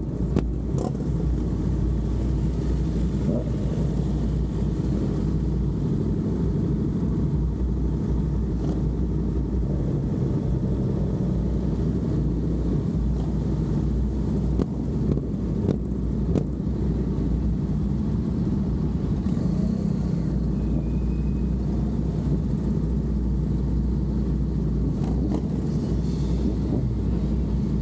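Motorcycles running at low speed, a steady low engine sound with no revving.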